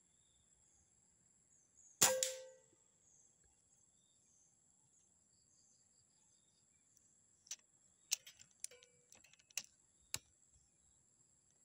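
A single sharp shot from a PCP air rifle about two seconds in, with a short ringing tail, over a steady high chirring of insects. Several smaller sharp clicks and taps follow between about seven and ten seconds in.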